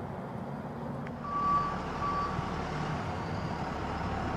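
Two electronic beeps at the same pitch, a longer one and then a shorter one, about a second in, over a steady low outdoor rumble.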